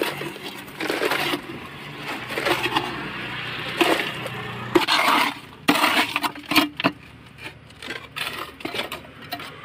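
Wet concrete being tipped from a metal pan into a wooden column form: gritty scraping and sliding of the mix, with clinks and knocks of the pan against the boards. A steady low hum runs underneath.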